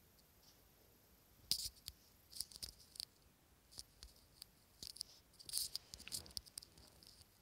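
Faint phone handling noise: irregular clicks and short rustles of fingers tapping and sliding on a touchscreen, starting about a second and a half in.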